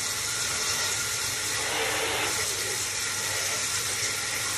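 Water from a shower head spraying onto plastic Dyson cyclone parts in a bath, a steady hiss, as the last of the dust is rinsed out of them.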